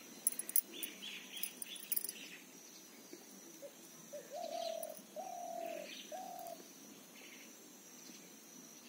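A dove cooing three times in a row, each note a little over half a second, about halfway through. Faint small-bird chirps and a few soft clicks come in the first two seconds.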